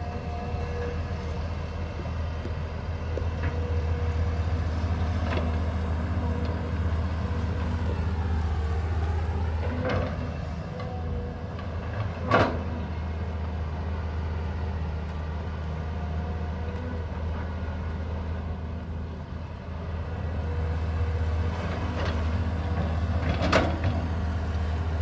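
Caterpillar 320 GC excavator's diesel engine running steadily. A tone dips and then rises in pitch around eight to ten seconds in. Several sharp knocks sound over it, the loudest about twelve seconds in.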